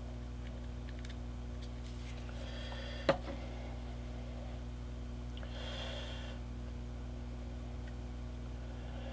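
A single sharp clack about three seconds in as a plastic super glue bottle is set down on the work board, over a steady low electrical hum, with a faint hiss twice.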